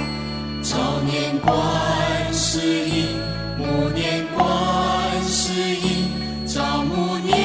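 Chinese Buddhist devotional music in the style of a chant: a slow melody of long held notes over sustained low accompanying tones, with a new note or phrase starting every one to two seconds.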